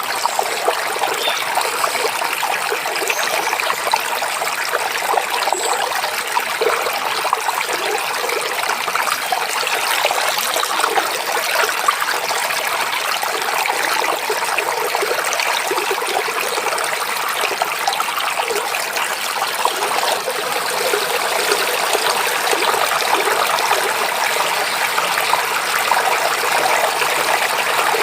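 A stream babbling and splashing over rocks, a steady rush of running water.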